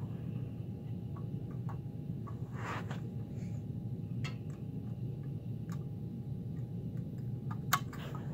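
Scattered small clicks and taps from a First Gear 1/34-scale die-cast front-loader garbage truck model being handled, its front forks and a toy dumpster being worked, with a sharper click near the end. A steady low hum runs underneath.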